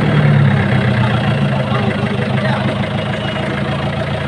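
Fishing boat's engine running steadily at an even speed, a continuous low hum.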